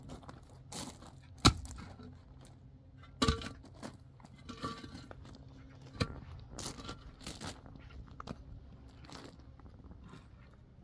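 Scattered knocks, crunches and scrapes of objects being handled, irregular, with the sharpest knocks about a second and a half and three seconds in, over a low steady background hum.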